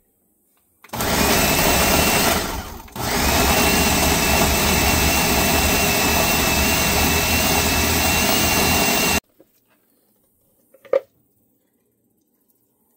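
Ninja countertop blender motor running loaded with chunks of deboned chicken, grinding it into ground meat. It starts about a second in, stops briefly and starts again, then runs steadily with a high whine for about six seconds before cutting off suddenly. A light knock follows near the end.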